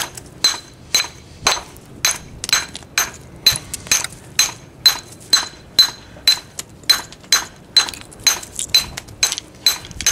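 Mason's brick hammer striking the edge of a stone block in a steady run of sharp blows, about two to three a second, each with a short metallic ring. The hammer is chipping the edge to rock-face the stone, giving it a rough split face.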